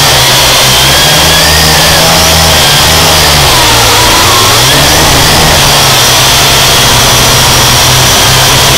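A drone's motors and propellers whining loudly, their pitch wavering up and down, under heavy wind noise on the microphone.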